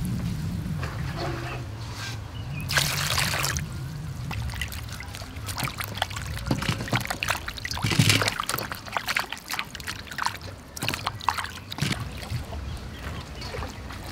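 Water sloshing and splashing in a metal basin as hands rub and wash okra pods and chilies in it. There is a short rush of water about three seconds in, then a run of quick, irregular splashes and knocks.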